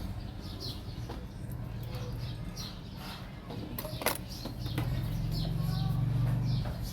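Small birds chirping, short falling chirps about twice a second, over a low steady hum that grows louder near the end, with a sharp click about four seconds in.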